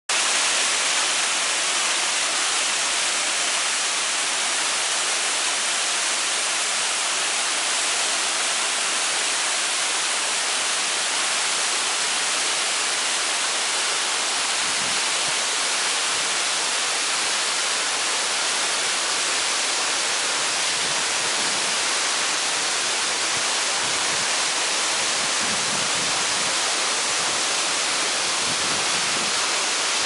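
Steady rush of falling water: a waterfall and the stream below it cascading over rocks, an even hiss heavy in the high end.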